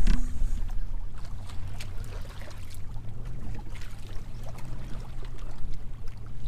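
Lake water lapping and splashing against the hull of a fishing boat, with a low steady hum underneath and a few light ticks.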